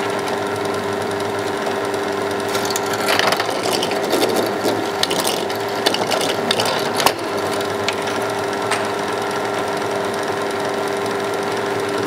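Bench drill press running with a steady motor hum. From about two and a half seconds in, for roughly four seconds, the bit cuts into an acetal (POM) plastic nut held in a vise, adding rough cutting noise and scattered clicks over the hum.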